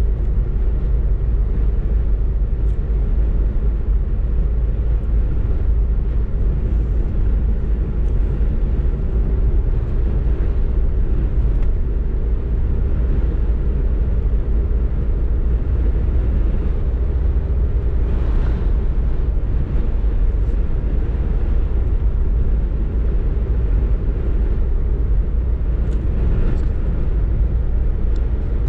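Steady low rumble of a car driving at road speed, heard inside the cabin: tyre and engine noise.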